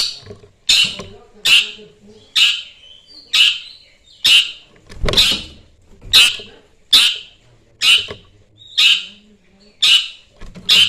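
Long-tailed shrike (cendet) calling over and over, a loud call about once a second, each starting sharply and fading. It is a lure call meant to provoke rival shrikes to answer.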